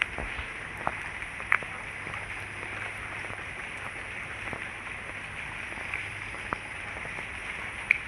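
Steady night chorus of crickets, with a few sharp clicks scattered through it, the loudest about one and a half seconds in.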